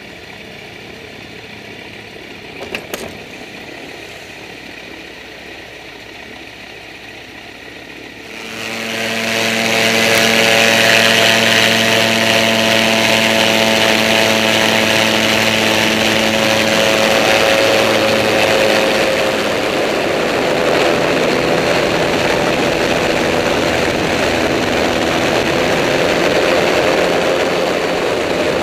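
Cygnet amphibious trike's engine and pusher propeller running steadily at low power, then opened up about a third of the way in to a loud full-power run for the takeoff across the water, holding there with slight shifts in pitch.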